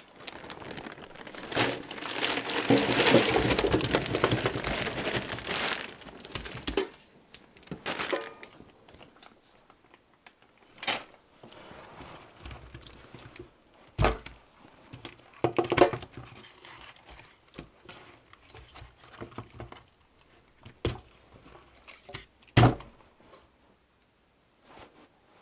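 A few seconds of loud, close rustling and crinkling, followed by scattered single knocks and clicks with quiet gaps between them.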